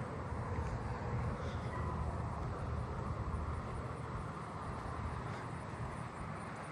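Steady low rumble of the outdoor background, with faint high trilling of southern ground crickets over it.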